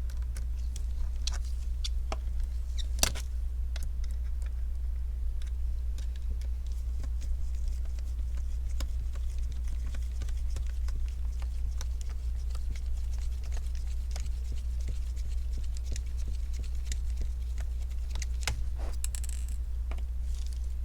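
Scattered small clicks, taps and scratches of laptop hinge parts, plastic pieces and small screws and nuts being handled, with one sharper click about three seconds in and a few more near the end, over a steady low electrical hum.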